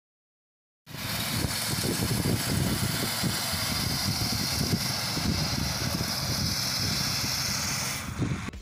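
Small engine of a power weeder fitted with a reaper attachment, running steadily with a fast low pulse. It cuts in about a second in and fades away near the end.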